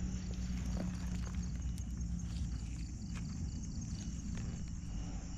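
Footsteps and hand-handling noises on wet, muddy ground: scattered soft clicks and squelches. Night insects trill steadily in the background.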